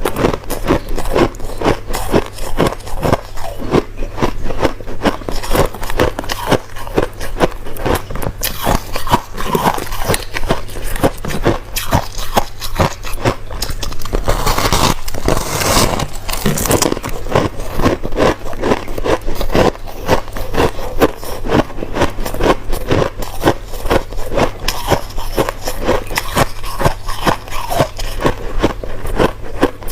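Crushed ice being chewed close to the microphone: a continuous run of rapid crunching and crackling bites, denser about halfway through, over a low steady hum.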